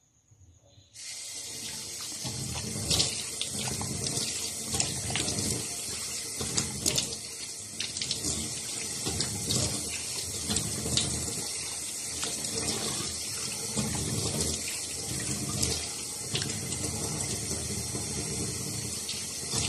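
Water running from a tap into a sink, starting suddenly about a second in, with irregular splashing throughout as it is scooped and splashed to rinse off the soap.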